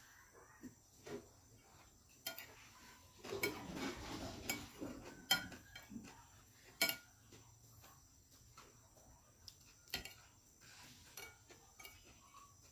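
Spoon and fork clinking and scraping on a plate of fried rice while eating, in scattered sharp taps, with a busier stretch of scraping about three seconds in.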